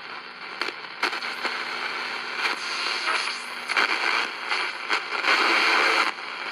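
Shortwave hiss and crackling static from a QFX R-9 portable radio's speaker, with no clear speech coming through. The noise rises and falls and swells loudest about five seconds in.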